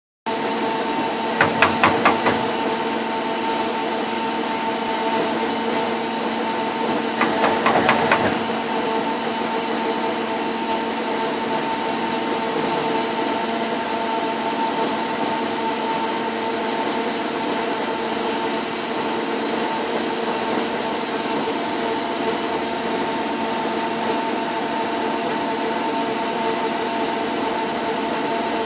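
Hitachi Seiki HPV 23 CNC lathe powered up with a steady mechanical hum, broken by two short bursts of rapid rattling clicks, about a second and a half in and again around seven seconds in.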